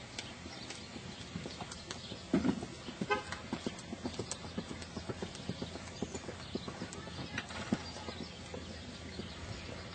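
Hoofbeats of a five-year-old grey mare cantering on arena dirt: a steady run of dull thuds, with one louder thud about two and a half seconds in.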